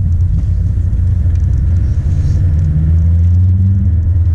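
Car driving: a steady low rumble of engine and road noise, the engine note climbing slightly about two seconds in.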